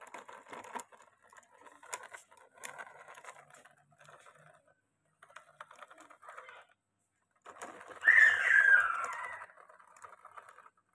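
Plastic toy dump truck clicking and rattling as it is pushed by hand over gritty ground, in small irregular ticks. About eight seconds in there is a louder wavering high-pitched sound lasting a second or two.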